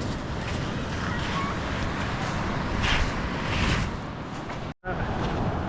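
Wind buffeting the microphone over a steady rush of surf, with two brief louder swells around the middle. The sound cuts out for an instant near the end.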